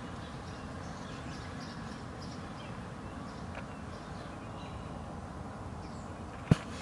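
Steady outdoor background noise with faint, scattered bird chirps, and one sharp click shortly before the end.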